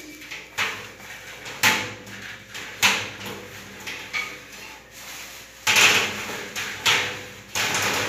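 Square metal supply-air ceiling diffuser scraping and knocking against the ceiling grid as it is pushed and worked into place, in about six short bursts, the loudest about six seconds in.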